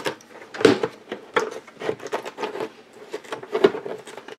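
Tin snips cutting through a thick black plastic plant pot: a series of crunching snips, about one every two-thirds of a second, as the blades work their way through the plastic wall.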